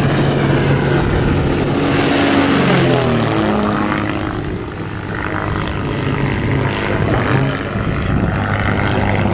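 Engine and propeller of a radio-controlled scale model Cessna Bird Dog in a low flypast. The engine note drops sharply in pitch as the plane passes close overhead about three seconds in, then runs on steadily as it flies away.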